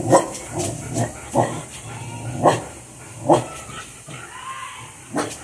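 Dogs play-fighting, with short, sharp barks and yips coming about every second, half a dozen in all.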